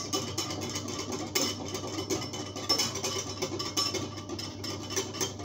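Wire whisk beating a thin cornstarch batter in a ceramic bowl to work out the lumps: a fast, irregular run of light clicks and scrapes as the tines strike the bowl.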